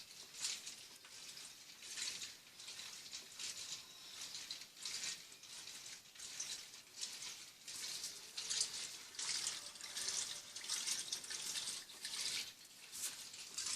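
Water sloshing inside a 15 kg Turbo Economia top-loading washing machine as it agitates a load of jeans, a hissing swish that surges and eases a little over once a second.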